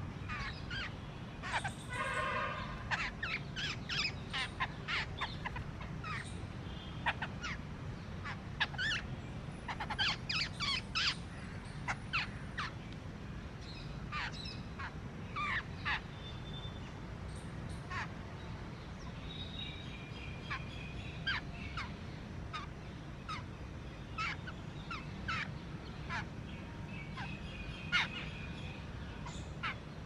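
Birds chirping and calling: many short sharp chirps throughout, with a harsher call about two seconds in, over a steady low rumble.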